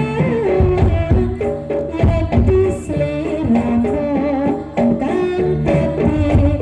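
Live kuda kepang accompaniment music: a sustained melody line moving from note to note over steady hand-drum strokes.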